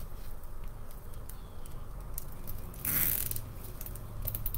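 Plastic deco mesh and zip ties being handled and tied: faint crinkly rustling with small clicks, and a short, louder rustle about three seconds in.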